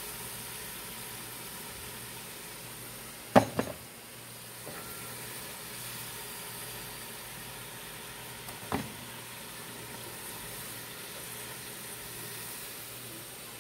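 Potato slices frying in hot oil in a pan, a steady sizzle. Two sharp clacks of kitchen tongs handling the potatoes, the louder about three and a half seconds in and another near nine seconds.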